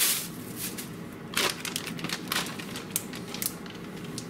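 Clear plastic bag crinkling and rustling in irregular bursts as it is handled and closed around floured chicken pieces.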